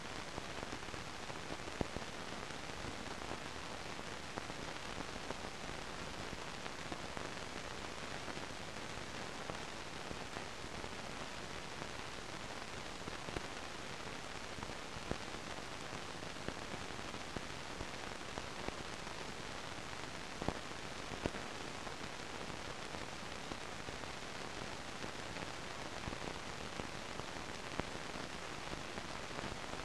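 Steady hiss with scattered faint clicks and crackles: the noise floor of an old film soundtrack with no programme sound on it.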